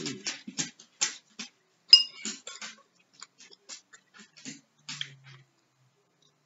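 A metal spoon scraping and clinking against a ceramic soup bowl as it scoops up chicken noodle soup, with one sharp ringing clink about two seconds in. Softer clicks of chewing and lip smacking come between the clinks.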